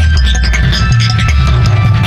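Electronic dance music: a deep bassline stepping between notes under quick drum hits, with held synth tones above.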